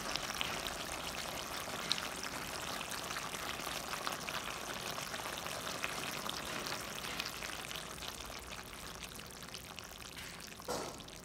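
Fish head curry simmering in a kadai, the gravy bubbling with a steady hiss and small pops that ease off toward the end. A short knock sounds near the end.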